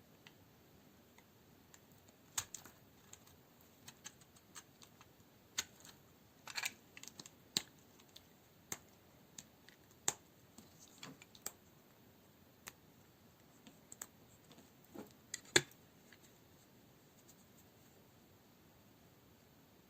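Dry Duru coniferous bar soap being cut into cubes with a blade: irregular crisp cracks and crumbly scrapes, a dozen or so, the loudest snap about three quarters in. The sounds stop after that.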